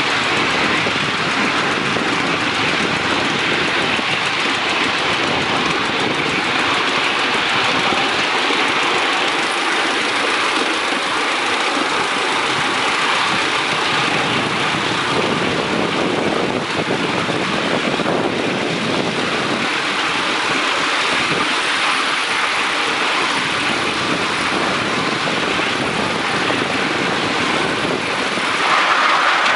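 Steady running noise of a ride-on miniature live-steam train on the move, with wind rushing over the microphone, growing a little louder near the end.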